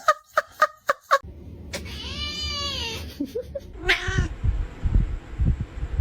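Cat meowing: a quick run of about five short calls, then one long drawn-out meow that rises and falls about two seconds in, and another brief call near four seconds. Low thumps and rumble follow in the last two seconds.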